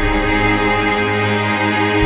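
Classical string music with cello, playing long held notes.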